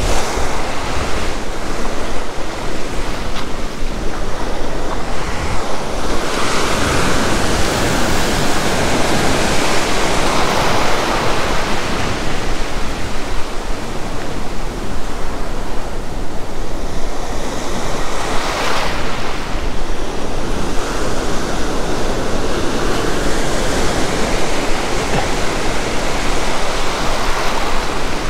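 Ocean surf breaking and washing up a sandy beach in a steady rush, swelling louder a few seconds in and again briefly past the middle.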